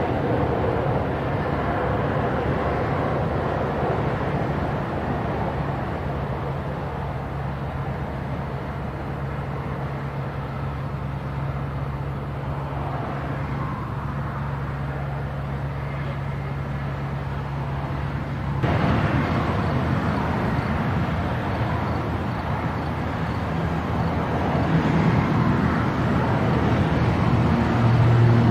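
Steady engine roar with a low hum underneath. About two-thirds of the way through it cuts abruptly to a louder, rougher stretch that swells toward the end.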